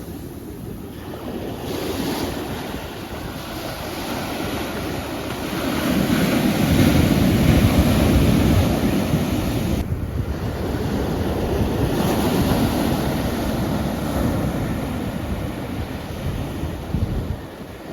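Ocean waves washing onto a shore, a steady rush of surf with one wave swelling louder a third of the way through.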